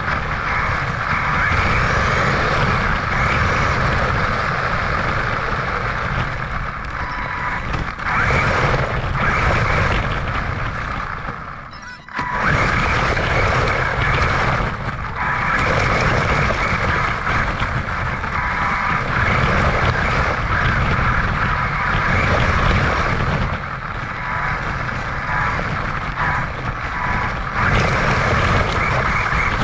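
Electric RC car running, a steady noisy whir of motor and tyres that briefly drops away about twelve seconds in.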